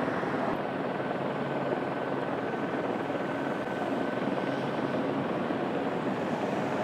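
Light single-turbine helicopter running steadily, a dense even rotor-and-engine noise, with a faint steady high whistle from about half a second in until about five seconds.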